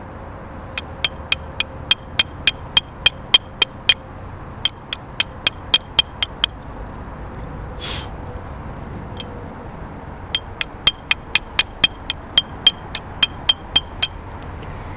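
Chipping hammer striking a fresh flux-core weld bead on mild steel pipe to knock the slag off: quick, ringing metal-on-metal taps, about three to four a second, in two runs with a pause of a few seconds between them.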